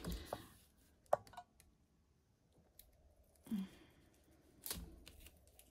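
Sparse sharp clicks and taps from small craft tools and paper being handled on a desk, a few spread out, the loudest near the end.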